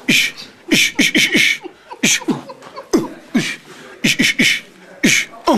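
A person beatboxing: sharp hissing snare-like bursts, each with a short falling tone underneath, about a dozen of them in an uneven rhythm.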